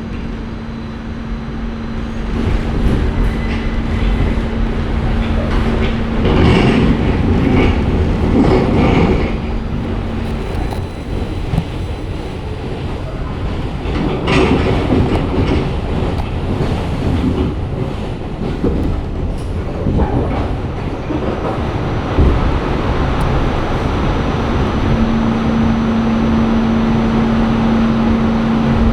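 NYC subway Q train pulling out of the station: wheels rumbling and clacking over the rails, with bursts of rattling. A steady low hum sounds through the first part and comes back near the end.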